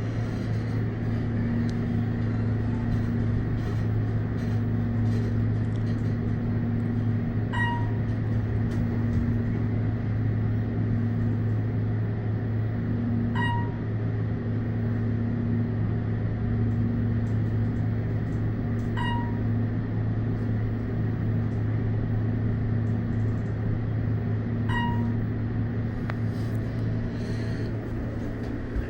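Otis 211M elevator car in travel: a steady low hum from the ride. A short ringing chime sounds four times, about six seconds apart, like a floor-passing ding.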